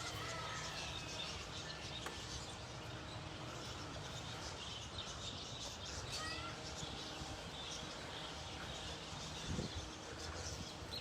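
Birds chirping with short, scattered calls and small rising and falling glides over a steady outdoor background, with one dull bump about nine and a half seconds in.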